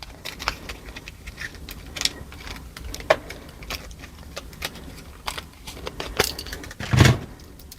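Vintage clip-on earrings being handled: light, scattered clicks and jingles of metal parts and plastic and glass beads. There is a louder knock about seven seconds in.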